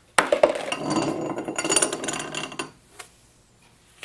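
Steel parts of a Wilton bullet vise clinking and rattling against each other as they are handled and taken apart, for about two and a half seconds. A couple of light clicks follow near the end.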